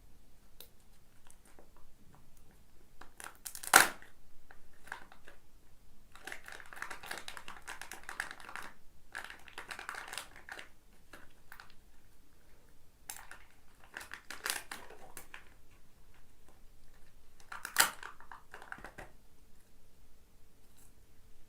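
Kinder Joy egg wrappers being handled: foil and plastic crinkling and tearing in stretches, with two sharp loud snaps, one about four seconds in and one near the end.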